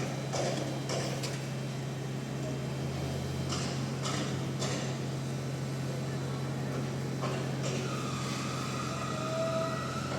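Heavy construction machinery running with a steady low drone, with scattered knocks and clanks, and a steady high whine for about two seconds near the end.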